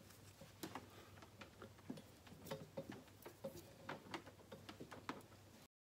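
Faint, irregular light clicks and taps of hands handling small parts in a car's engine bay, over a steady low hum. The sound cuts off abruptly near the end.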